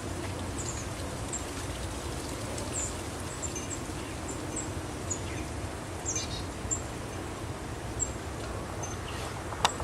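Small birds chirping: short, high chirps scattered every second or so, with a brief run of chirps about six seconds in, over a steady low background rumble.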